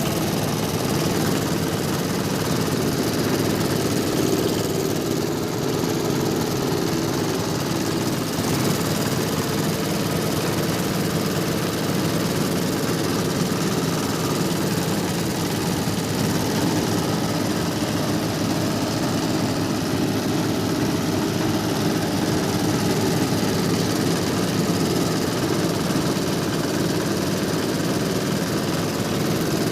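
Hammer-mill rice husk grinder running steadily, a continuous loud mechanical hum and rush with no pauses.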